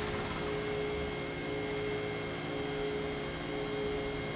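Electric hydraulic power unit of a MaxJax portable two-post lift running steadily as it raises a car, a constant motor-and-pump hum.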